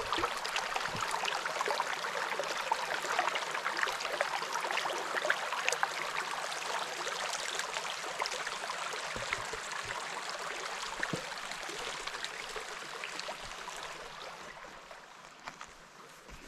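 A small mountain creek running over rocks, a steady babbling rush that grows fainter near the end.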